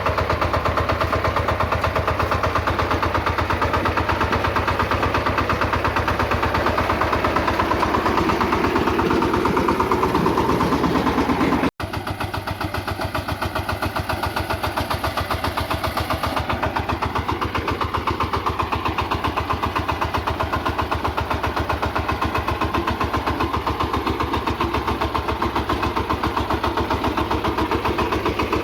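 Single-cylinder diesel engine of a VST Shakti 130 DI power tiller running steadily with a rapid, even chugging beat. It breaks off for an instant about twelve seconds in, then carries on a little quieter.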